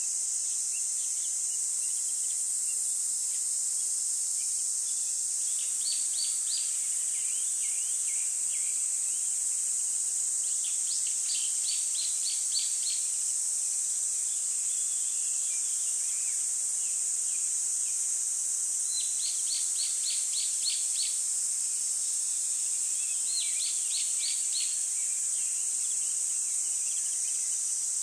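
A steady high-pitched insect chorus like crickets, with a small bird singing four short trills of rapid repeated chirps.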